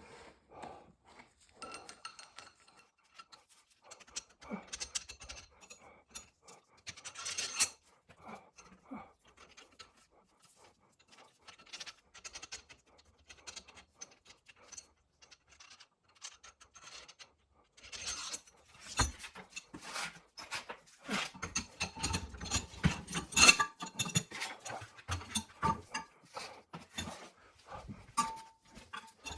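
Steel vise parts being handled and fitted together: scattered clicks, clinks and scrapes of metal on metal, with a few brief ringing tones, busier in the second half.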